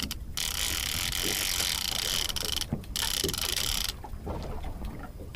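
Fishing reel's clicker ratcheting rapidly as a running fish pulls line off. It goes in spurts with brief pauses and eases off about four seconds in.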